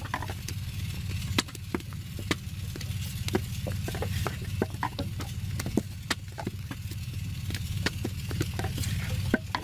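Wet clay being kneaded, thrown and pressed into a wooden brick mould by hand: a string of short, sharp slaps and clicks at irregular intervals, over a steady low hum.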